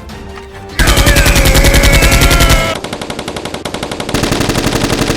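Rapid automatic gunfire, a dubbed-in machine-gun sound effect for the toy blasters, in bursts that start about a second in; the first burst is the loudest, then a softer stretch, then loud fire again near the end.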